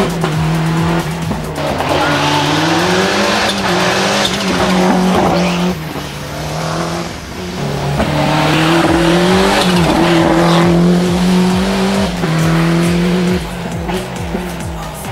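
Ford Escort RS Cosworth rally car's turbocharged four-cylinder engine revving hard at speed, its pitch holding high and then dipping and climbing again several times through gear changes and corners.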